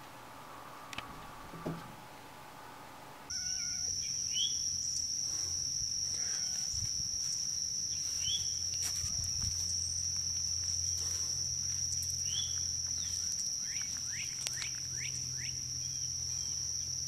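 Outdoor summer insects droning in one steady high-pitched tone, starting about three seconds in, with scattered short high chirps over it.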